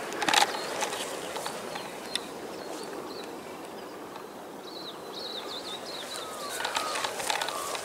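Quiet outdoor bush ambience with a steady background hiss. There are a couple of sharp rustles or steps at the start, faint quick high chirps about five seconds in, and short chirps with more rustling near the end.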